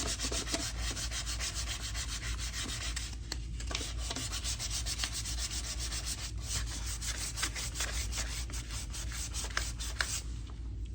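Sandpaper rubbing over the primed steel of a car fender by hand, in quick, even back-and-forth strokes that pause briefly twice and stop shortly before the end.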